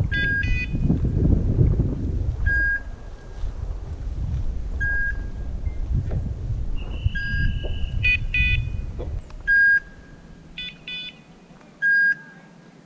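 Electronic beeper collar on the pointing dog, beeping about every two and a half seconds in point mode, the signal that the dog is standing on point. Shorter clusters of chirping electronic tones come in between. Footsteps rustle through dry grass and leaves until about nine seconds in, then stop.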